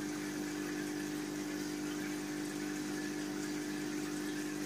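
Aquarium pump running with a steady electric hum and a faint hiss of moving water or air.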